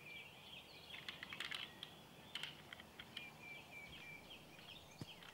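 Faint clacking of fallow deer bucks' antlers clashing in a rut, a quick flurry of clicks about a second in and a few more later. Faint high bird chirping runs underneath.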